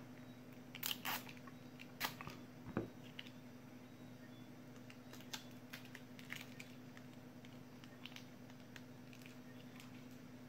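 Faint small clicks and crinkles from hands handling 18650 lithium-ion cells and their torn plastic wrapping. A few louder clicks come in the first three seconds, then sparse faint ticks, over a steady low hum.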